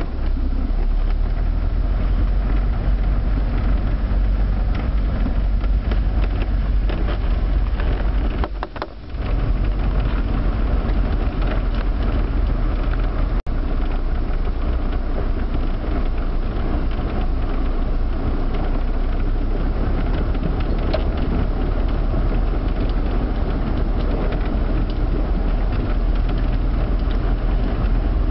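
Car driving along a flooded street in the rain, heard from inside the cabin: steady engine and road noise with a deep rumble. The sound dips briefly about eight and a half seconds in.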